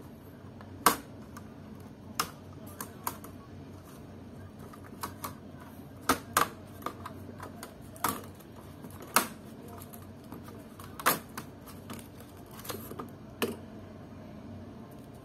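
Irregular sharp plastic clicks and snaps from a Samsung NP300E4X laptop keyboard being pressed and pried out of its deck, its retaining clips letting go one by one. There are a dozen or more, the loudest about a second in and again around nine seconds.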